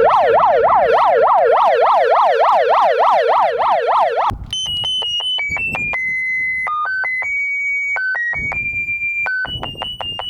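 Megaphone's built-in siren wailing rapidly up and down, about three or four sweeps a second, then cutting off after about four seconds and switching to a built-in electronic melody of pure beeping notes that step between pitches.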